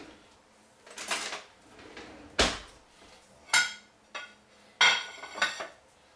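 Cutlery rattling in a kitchen drawer, then a sharp knock and several ringing clinks as a plate and a metal knife are handled and set down on the countertop.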